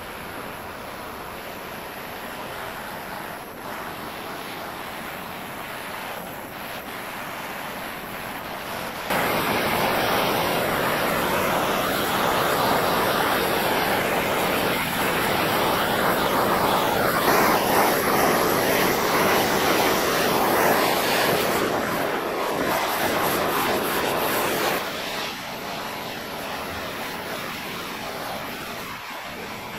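Handheld gas blowtorch burning with a steady hiss as its flame chars a bare wooden axe handle. It gets louder about nine seconds in and drops back a few seconds before the end.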